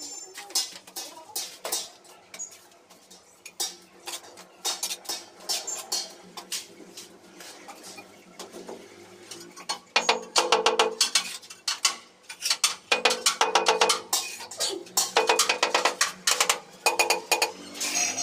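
Trowel and hammer tapping and scraping on ceramic wall tiles set in wet mortar: sharp clinks and knocks, scattered at first and coming in quick runs during the second half as the tiles are tapped down to bed them.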